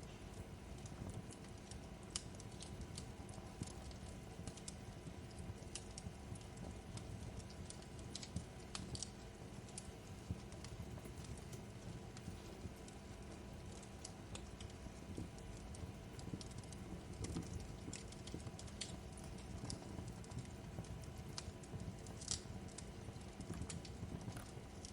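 Wood fire crackling in a fireplace: a steady low rumble with irregular sharp pops and snaps scattered throughout.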